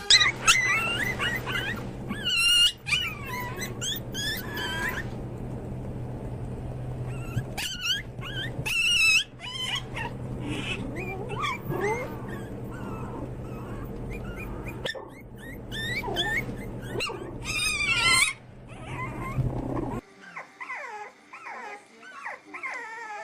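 Dog whining and yipping: many short high calls that bend in pitch, over a steady low hum. About twenty seconds in the hum stops abruptly and quieter, falling whines follow.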